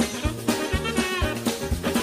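Background music with a steady beat, a walking low line and a wavering lead melody.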